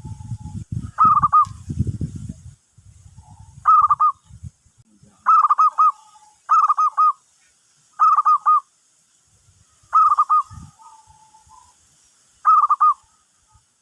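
Zebra doves (perkutut) cooing: seven short phrases of three or four quick rolling coos a second or more apart, with fainter, lower single notes between them. A low rumble in the first two and a half seconds.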